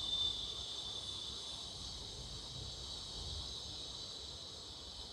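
Steady high-pitched chirring of crickets in the background.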